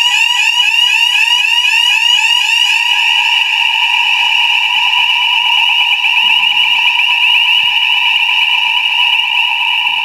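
Electronic fire alarm sounder going off: a loud, piercing tone rising in quick repeated sweeps, which quickens into a faster warble about three seconds in.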